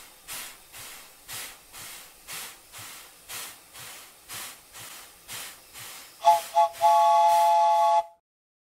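Steam locomotive sound effect: even chuffs of steam about twice a second, then two short toots and a long steady whistle of several notes that cuts off suddenly.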